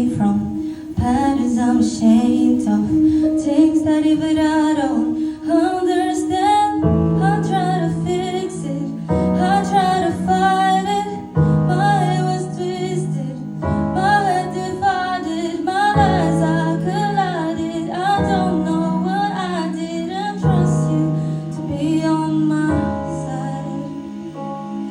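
Music: a female voice singing a melody over keyboard accompaniment, with held chords changing about every two seconds.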